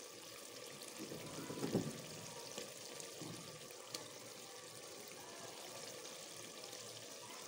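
Dil kaleji masala sizzling faintly and steadily in an earthenware pot, fried down until the oil has separated. A few louder sounds come between one and two seconds in as chopped green chillies and coriander are dropped in.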